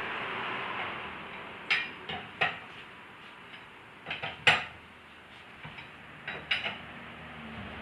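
Metal parts clinking and clanking as they are handled, several sharp strikes in irregular groups, the loudest about four and a half seconds in, over a steady hiss that eases off in the first second or so.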